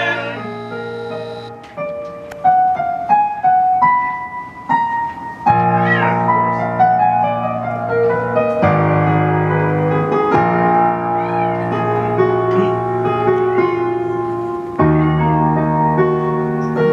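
Electronic keyboard played with a piano sound. Single notes are picked out in a rising line for the first few seconds, then full sustained chords come in over a bass line.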